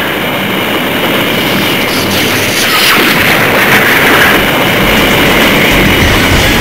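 Loud, continuous booming and rumbling noise, with a deeper rumble building near the end.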